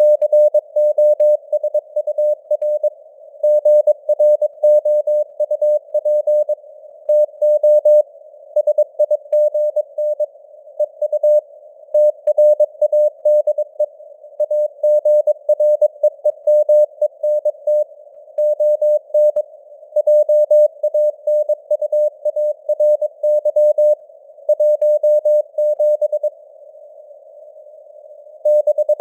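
Morse code (CW) sent at 22 words per minute as a single mid-pitched tone keyed in dots and dashes, over a narrow band of simulated radio hiss. The keying pauses for about two and a half seconds near the end, leaving only the hiss.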